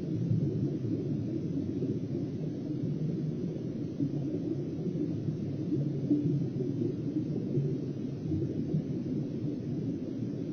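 Steady muffled low rumble of water noise picked up through an underwater camera's housing beneath the ice.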